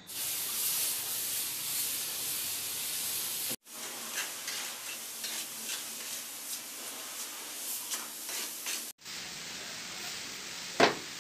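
Hissy scraping of cement mortar being worked as ceramic wall tiles are set, with many small scrapes and taps, broken by two abrupt cuts. Near the end mortar is stirred in a bucket with a rod, with one sharp knock.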